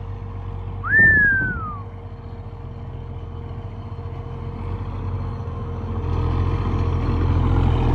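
Leyland 285 tractor's diesel engine running steadily, growing louder from about five seconds in. About a second in, a brief high tone slides downward, like a whistle.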